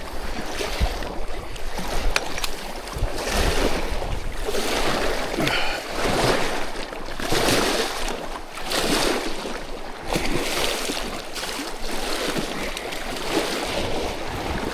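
Water washing and splashing at the reservoir's edge, swelling and falling every second or two, with wind rumbling on the microphone, while a big pike is played in toward the landing net.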